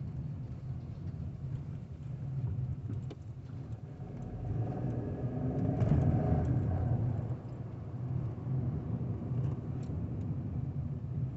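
Volkswagen 200 TSI 1.0-litre turbocharged three-cylinder engine running, revved up from about four seconds in to a peak near six seconds, then dropping back.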